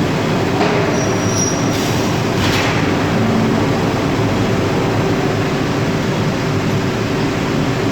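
Steady, loud industrial machinery noise from a rotary furnace and robot cell running, with a constant low hum. A brief high whine sounds about a second in, followed by two short hissing sweeps.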